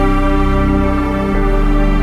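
Background music: sustained synthesised chords, changing about a second and a half in.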